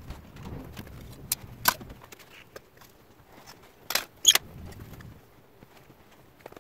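Metal objects clinking: two sharp clinks about a second and a half in and another two, louder, about four seconds in, each with a short ring. A low rumble fades out over the first two seconds.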